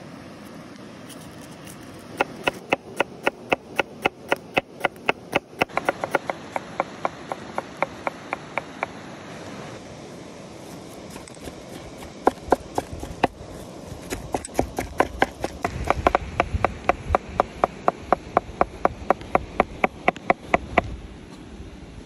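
Large kitchen knife chopping onion and minced meat on a wooden board: quick, even knocks of the blade on the wood at about four a second, in two long runs with a pause of a few seconds between them.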